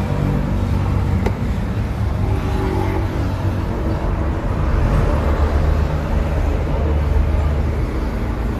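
Bedford truck's engine running steadily, a low rumble heard from inside the cab.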